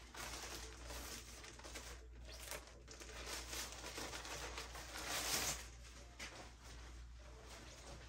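Packaging and clothes rustling and crinkling in irregular bursts as clothing is taken out of a mail-order package and handled, loudest about five seconds in.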